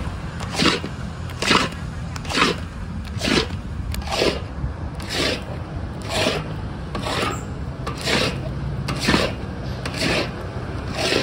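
A paddle scraping thick paste around a metal wok in steady strokes, about one a second.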